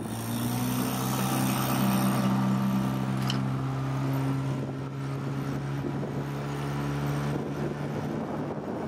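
Small outboard motor running at a steady speed, pushing an inflatable dinghy over choppy water, with a steady hum and wind and splash noise.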